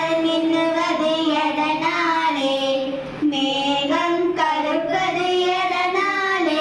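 A young girl singing a Tamil song into a handheld microphone, holding long notes, with a brief break about three seconds in.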